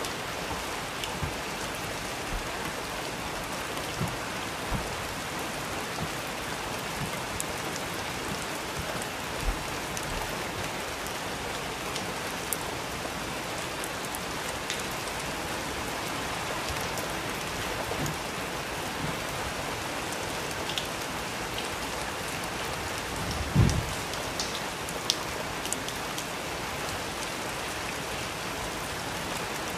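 Steady rain falling, with scattered close drip ticks and a few louder low thuds, the loudest about three-quarters of the way through.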